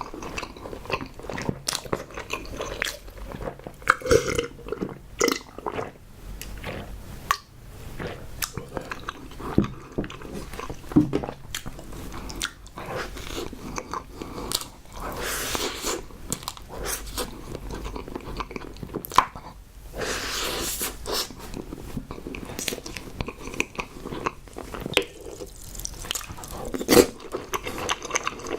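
Close-miked eating: a person biting and chewing, with many wet mouth clicks and occasional crunches, and a couple of longer breathy, slurp-like passages.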